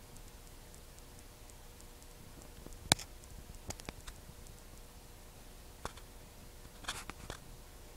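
Gunfire from a film-set shootout: one loud sharp shot about three seconds in, then a few fainter scattered shots, and a quick cluster of shots near the end.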